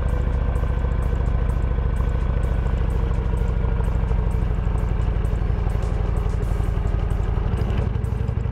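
Motorcycle engine running steadily at cruising speed, heard from an on-board camera, with music over it. The sound cuts off abruptly near the end.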